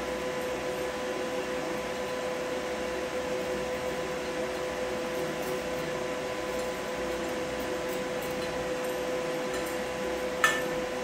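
Steady machine hum with a held mid-pitched tone. About ten and a half seconds in, a single sharp metallic clink, the steel welding electrode tapping the steel plate.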